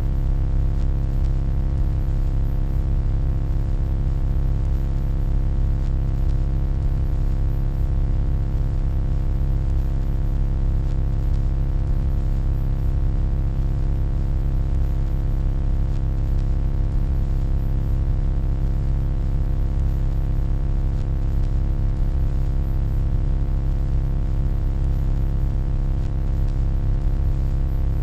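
Steady electronic hum: a deep, even drone with a stack of fixed tones above it and a faint hiss, unchanging throughout.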